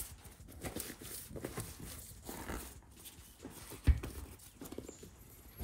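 Gloved hands working a rubber inner tube into a bicycle wheel rim under a half-fitted tyre: irregular rubbing and scuffing of rubber against the rim, with one dull thump about four seconds in.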